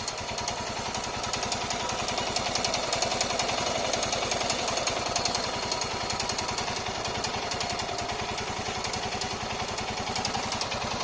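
Royal Enfield Himalayan BS6's single-cylinder engine idling with an even beat, a fast metallic ticking over it: the 'tic tic' clicking the owner presents as an engine problem. The sound cuts off suddenly near the end.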